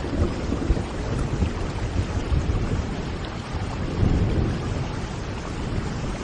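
Steady rush of rain and water noise with a deep low rumble underneath, swelling about four seconds in.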